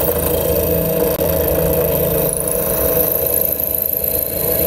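Bench drill press running steadily as its bit drills through a thin sheet-metal bracket.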